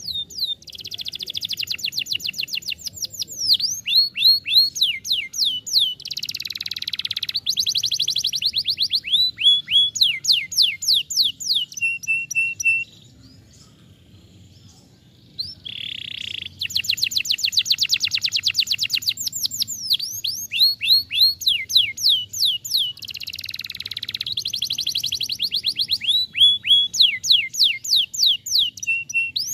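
Domestic canary singing: long phrases of rapid trills, each built from one note repeated fast, shifting from trill to trill. The song stops for about three seconds near the middle, then a second long phrase begins.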